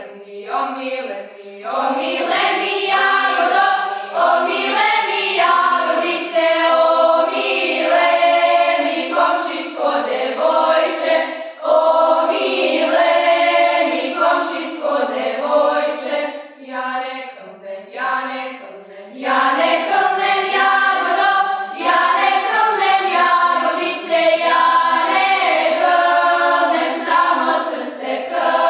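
Group of girls singing a Serbian traditional song unaccompanied, in several voices together, phrase by phrase with short breaks between phrases.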